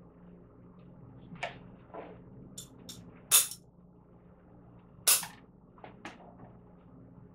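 A series of short sharp snaps and clicks from flower stems and tools being worked in a flower arrangement, two much louder than the rest about three and a half and five seconds in, over a faint steady low hum.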